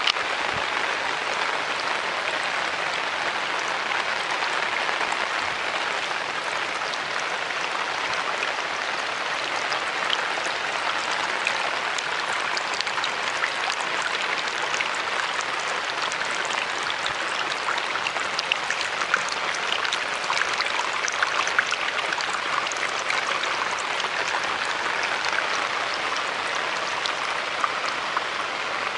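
Water running down an open split-guadua bamboo channel and pouring from a wooden spout: a steady rushing hiss with scattered small splashes and drips, more of them in the second half.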